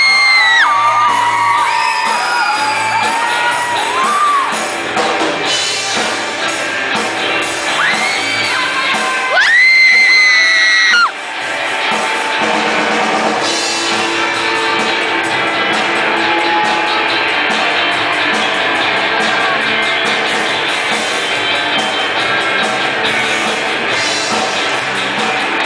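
Rock band music with a singer holding long, high notes over guitar. The sung part cuts off abruptly about 11 seconds in, and steady band playing continues after.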